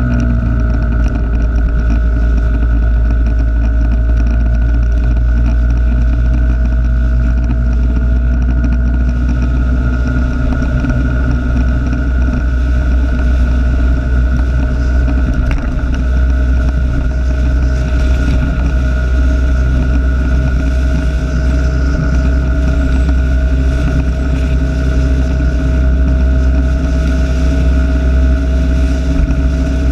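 A vehicle running at a steady cruising speed: a loud low engine drone with a steady whine above it, picked up by a camera clipped to the rear-view mirror.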